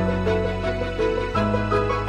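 Background music: a slow melody of short stepped notes over sustained bass notes that change about every second and a half.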